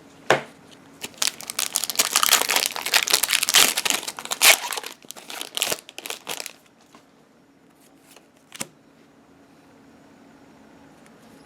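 Foil booster pack wrapper crinkling and tearing open for about five seconds, followed by a faint click and quiet room tone.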